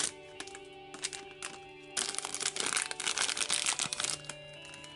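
Plastic blind bag being crinkled and torn open by hand, the crinkling heaviest from about two to four seconds in, over soft background music.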